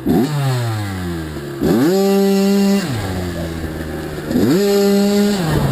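Kawasaki KX85 two-stroke dirt bike engine being ridden: the revs fall away, then climb and hold high twice, each time for about a second, before dropping back.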